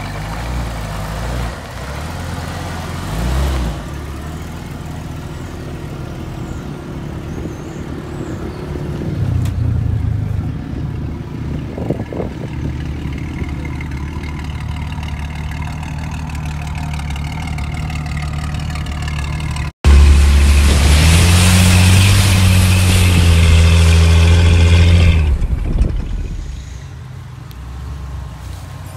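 Lifted Jeep Cherokee XJ's engine running and revving across several shots. About two-thirds of the way in, after a brief dropout, a much louder stretch of hard revving starts abruptly and falls away a few seconds later.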